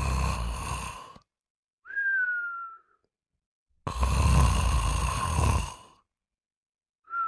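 A person snoring: two long, rumbling snores, each followed by a short whistle that falls slightly in pitch.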